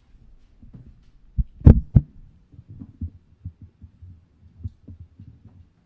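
Microphone handling noise: a string of low thumps and knocks as a microphone is carried and set in place. Three loud bumps come close together about a second and a half in, followed by smaller knocks.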